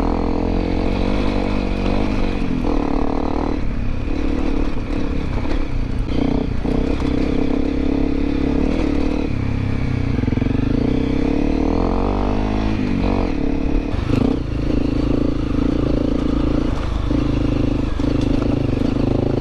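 Honda CRF250L Rally's single-cylinder four-stroke engine running steadily at low revs while the bike is ridden over a rocky trail, the revs rising and falling once about two-thirds of the way through. Scattered knocks and clatter from the bike hitting rocks.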